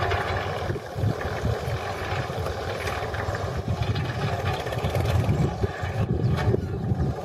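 Farm tractor engine running steadily as it pulls a rear-mounted compost spreader across a field, with a constant low, pulsing note.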